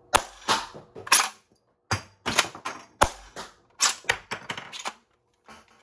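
3D-printed spring-plunger pump-action foam-dart shotgun blaster being pumped and fired: a rapid series of about a dozen sharp plastic clacks and snaps from the priming handle and the plunger release, stopping about five seconds in.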